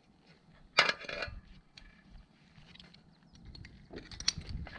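A sharp metallic clink with a brief ringing rattle about a second in, then a few light clicks and knocks near the end.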